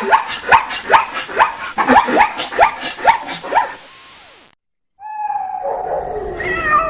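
Dog barking in quick yips, about nine calls roughly two a second, each dropping in pitch, stopping after about three and a half seconds. After a short silence, a cat's drawn-out meow begins about five seconds in.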